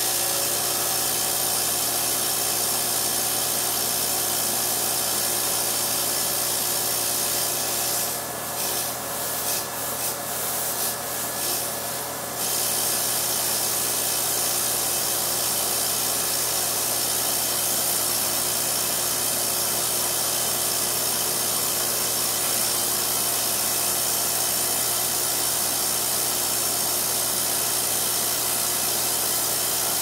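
Refrigeration vacuum pump (a 7 CFM unit) running steadily while it pulls a vacuum on a refrigerator compressor. About eight seconds in, the sound dips and flutters for roughly four seconds, then settles back to steady running.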